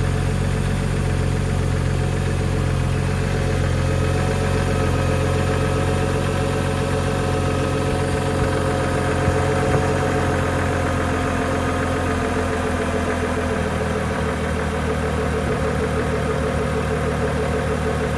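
BMW N55 3.0-litre turbocharged inline-six idling cold with a light regular knock, which the owner asks whether is rod knock despite new rod bearings; the noise occurs only when the engine is cold. The idle note changes about two-thirds of the way in.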